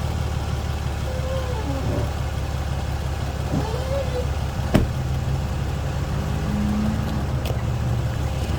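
Ram 2500 pickup engine running steadily at idle, with one sharp pop a little under five seconds in.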